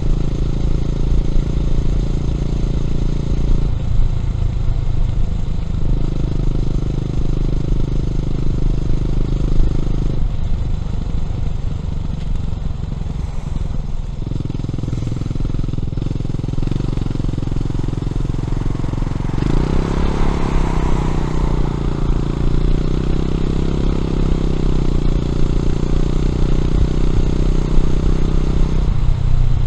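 Honda CB400SS's air-cooled single-cylinder engine running through a Yamamoto A-spec exhaust while riding. The note steps to a new pitch several times along the way.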